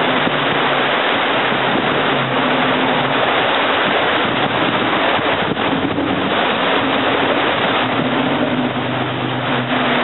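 Jeep engine running at low revs as it crawls out of a shallow creek and up onto rocks, under a steady rushing noise of flowing creek water.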